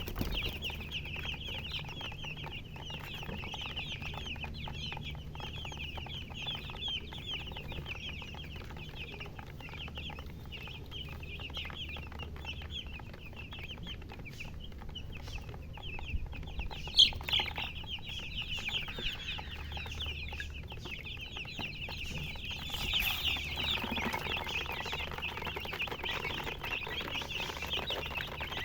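A brood of chicks peeping continuously, a dense overlapping run of short high-pitched chirps. A sharp click sounds once about 17 seconds in, over a steady low hum.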